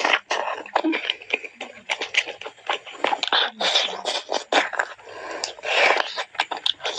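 Close-miked eating: wet chewing and lip smacking with many quick clicks, as grilled chicken is torn and eaten.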